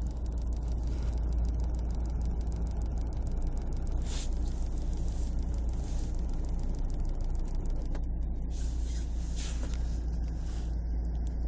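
Lada Largus heater-ventilation unit, set to blow air onto the windscreen, making a rapid ticking over the steady low rumble of the car, with a few short hissy bursts later and a thin steady tone near the end. This is the odd noise that a spell at fan speed 4 and then a slow return to 1 makes go away for a while.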